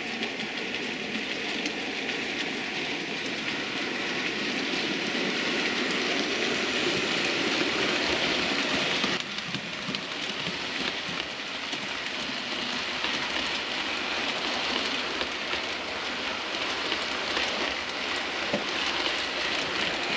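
Model train running on the layout's track: a locomotive hauling a rake of Pullman coaches makes a steady rolling whir. It grows louder as it approaches and drops abruptly about nine seconds in as it passes.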